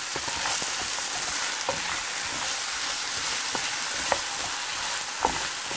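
Diced potato, carrot and onion sizzling in oil in a frying pan, a steady hiss, with a few light scrapes and taps of the spatula against the pan as the vegetables are stirred.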